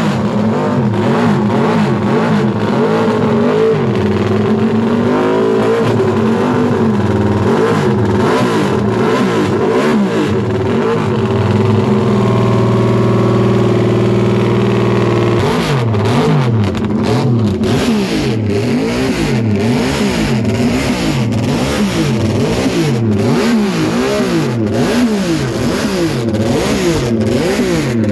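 Classic MV Agusta racing motorcycle engine revved hard while stationary. Repeated throttle blips rise and fall, then it is held at steady high revs for about three seconds near the middle, and the quick blips resume. Loud.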